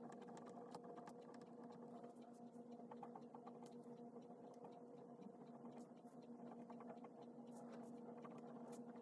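Faint pen writing on paper: irregular small ticks and scratches of the pen, over a steady low electrical hum.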